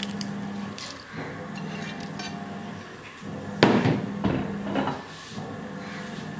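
A ceramic plate knocks sharply against a clay cooking pot about three and a half seconds in, with a short ringing tail, among a few lighter clicks and clinks, over a steady low hum.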